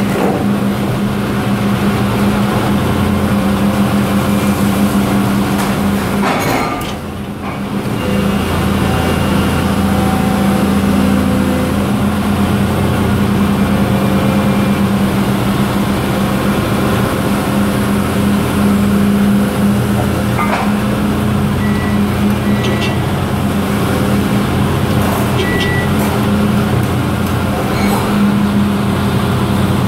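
An excavator's engine and hydraulics run steadily under load, powering a hydraulic wedge rock splitter. The sound dips briefly about seven seconds in.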